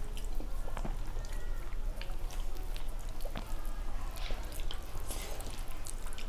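Wet eating sounds of soft, starchy rice being eaten by hand: scattered lip smacks, chewing clicks and the squish of fingers mixing the rice. A steady low hum runs underneath.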